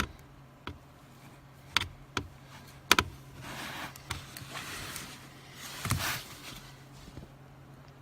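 Hand tools working on screws and plastic trim under a car dashboard: several sharp clicks and knocks, the loudest about three seconds in, then two stretches of scraping and rustling, over a faint steady low hum.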